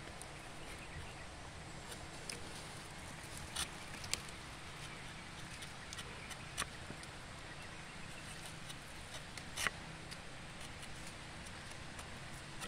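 Rubber-tapping knife shaving a thin strip of bark along the tapping cut of a rubber tree: a few short, faint scrapes and clicks scattered through the quiet, the loudest about ten seconds in.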